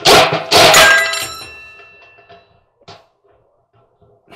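Two loud metal clangs about half a second apart inside a clothes dryer cabinet, the second ringing on and fading over about a second and a half, followed by a faint click.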